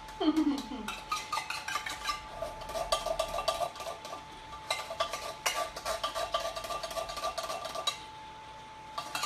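A spoon stirring in a bowl, with quick repeated clinks and scrapes against its sides that stop about a second before the end.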